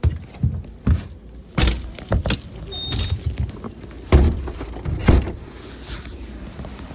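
A string of irregular knocks and bumps, as of things being handled and moved about, with a brief high squeak about three seconds in.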